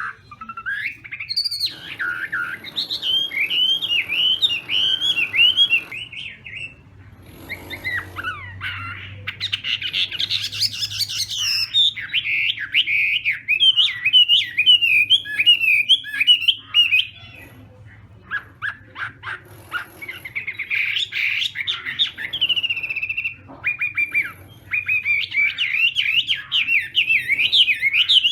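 Chinese hwamei singing its competitive song: loud phrases of quickly repeated swooping notes, several seconds each, with short pauses between them. A run of short, sharp notes comes about two-thirds of the way through.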